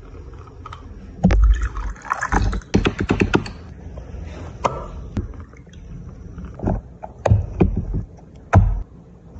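A glass stirring rod clinks quickly against a glass beaker as goat-milk formula is mixed, with liquid sounds. In the second half there are scattered single clicks and wet sounds as a cat sucks and chews at a feeding-bottle nipple.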